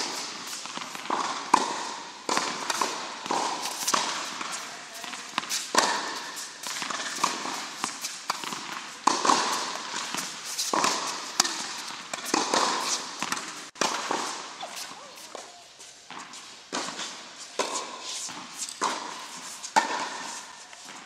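Tennis balls struck by rackets and bouncing on an indoor hard court: irregular sharp pops, several a second at times, echoing in the hall, with footsteps between them.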